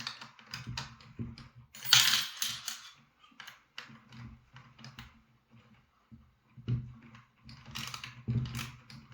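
A wrench tightening the nut on the bolt that holds a nail gun hanger to a DeWalt framing nailer: irregular metal clicks and rattles, loudest about two seconds in and again near the end.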